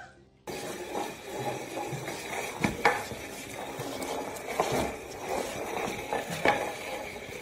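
A potted plant dragged across a wooden floor by a small dog: continuous scraping and rustling with scattered knocks and clinks.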